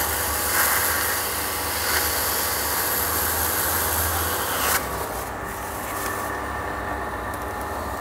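Timken wear-test machine's motor running steadily while its spinning test ring is cleaned of the oil and additive from the last run. A loud hiss over the motor stops suddenly after about four and a half seconds.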